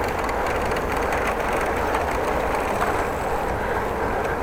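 Steady rushing noise of riding a bicycle: wind on the microphone and tyres rolling on the road, at an even level throughout.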